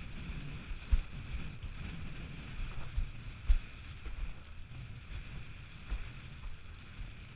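Wind buffeting an action camera's microphone on a windsurf rig planing over choppy water, a steady rumble and hiss of wind and spray. Several sudden low thumps come through it.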